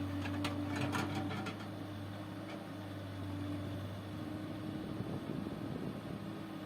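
Backhoe loader's diesel engine running steadily, with a quick run of sharp metallic clanks in the first second or so.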